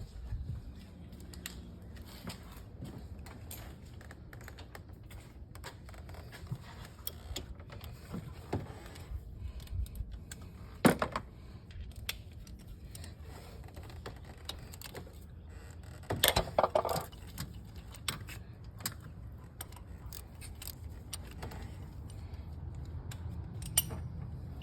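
Metal hand tools and parts clinking and clicking on and off during engine work. There is a sharp click about eleven seconds in and a short run of clinks later on.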